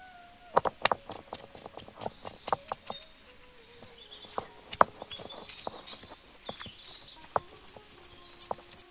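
Stone roller rocked and rolled over a flat grinding stone, crushing green chilies. Stone knocks on stone in irregular sharp clacks, one to a few each second, with a light grinding scrape between them.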